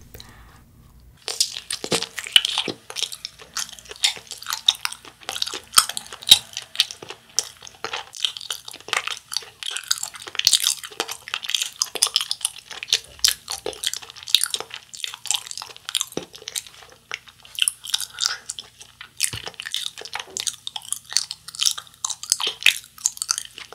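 Close-miked biting and chewing of a soft Japanese wagashi sweet, starting about a second in: dense, irregular wet mouth clicks and smacks.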